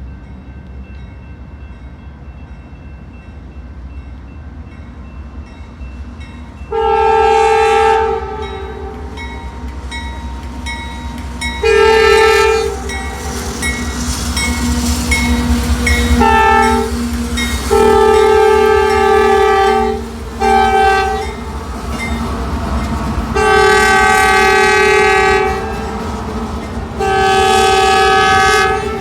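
Diesel freight locomotives of a CSX intermodal train rumbling past while the lead unit's air horn sounds seven chord blasts: long, long, short, long (the grade-crossing signal), then short, long, long.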